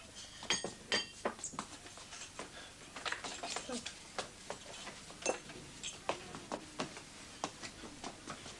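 Cups and plates clattering as they are set out on a table: a steady string of light knocks, with a few sharper ringing clinks about half a second, one second and five seconds in.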